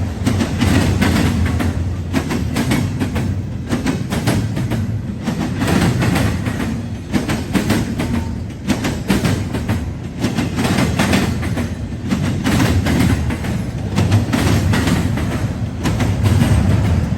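Intermodal freight train's cars rolling past, a steady rumble with wheels clicking and clacking over the rail joints.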